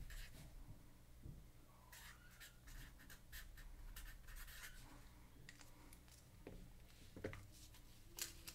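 Faint scratching of a marker writing a name on a small paper label, in a series of short strokes.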